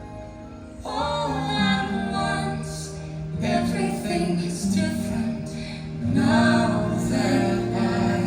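Fireworks show soundtrack music with a woman singing, quiet at first and swelling about a second in.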